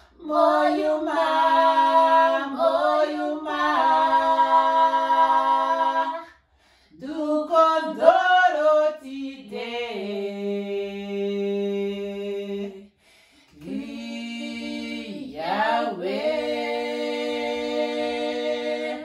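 Two women singing a song unaccompanied, in phrases of long held notes with short breaks about six and thirteen seconds in.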